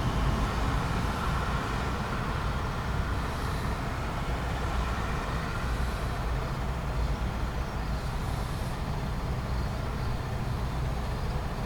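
Traffic noise with vehicle engines running, a steady low rumble from cars and trucks that eases slightly after the first couple of seconds.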